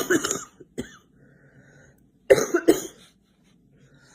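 A girl coughing: a coughing fit tails off, a short single cough follows, then two coughs close together about two and a half seconds in, with faint breathing between.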